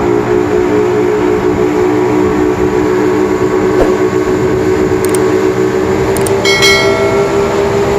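Boat engine running steadily: a loud, even drone with a few steady tones, and a brief high squeak about six and a half seconds in.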